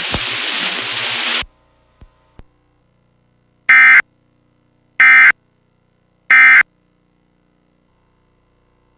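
Emergency Alert System end-of-message signal: three short, loud, screechy digital data bursts (the SAME "NNNN" end-of-message code), each about a third of a second long and spaced a little over a second apart. A steady hiss before them cuts off about a second and a half in.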